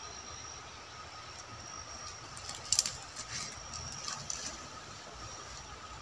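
Forest ambience: a steady hiss with a faint high-pitched drone, broken by a short cluster of sharp cracks and crackles about halfway through.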